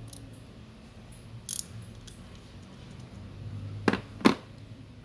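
Metal hand tools from a socket set being handled: a light click about a second and a half in, then two sharp clacks close together near the end, over a faint low hum.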